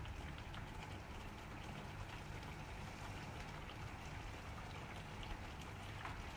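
Thick tomato-and-cream makhni gravy simmering in a kadhai, bubbling with a steady soft hiss and faint small pops as it reduces and thickens.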